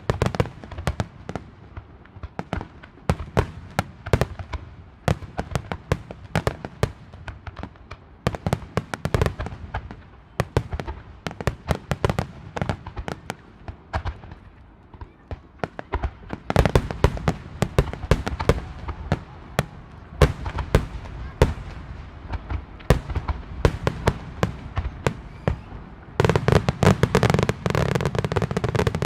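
A starmine barrage of aerial firework shells bursting in rapid succession, a dense stream of bangs and crackles. It thickens about halfway through and becomes an almost unbroken volley for the last few seconds.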